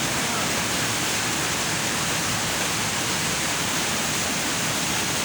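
Waterfall pouring into a pool, a steady rush of falling water.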